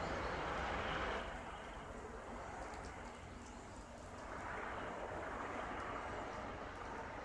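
Several helicopters circling overhead, their rotor and engine drone heard at a distance. It is louder at first, fades, then swells again about halfway through.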